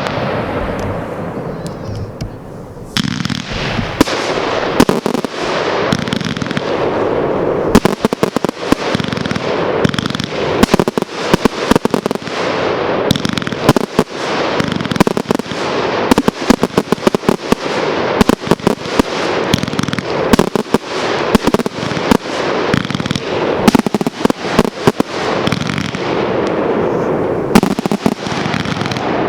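Aerial fireworks display firing a dense barrage of bursts and crackle. It opens on a fading crackle, and about three seconds in it builds into rapid, near-continuous bangs.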